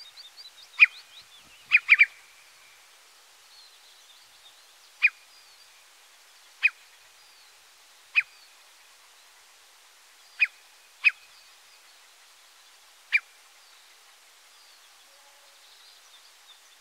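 Eurasian curlew giving short, sharp alarm calls: a quick cluster of three or four in the first two seconds, then single calls every one to two seconds, stopping a few seconds before the end. The adult is guarding its chicks hidden in the grass. Faint chirping of small birds runs behind.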